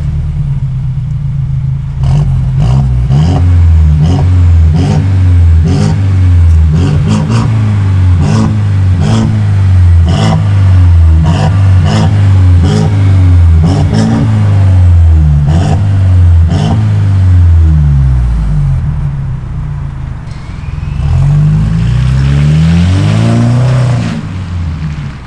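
Mercedes E200 (W213) turbocharged four-cylinder revved hard through a de-silenced exhaust with its stock mufflers removed. It blips up and drops back about once a second, with sharp pops and crackles on the overrun. Near the end the engine pulls away in one longer rise and fades.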